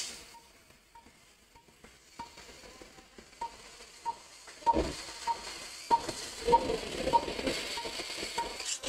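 Short beeps of one pitch repeating evenly, a little faster than one a second, typical of an operating-room patient monitor's pulse tone. From about halfway through, faint hiss and rustling handling noise join in, with a few soft knocks.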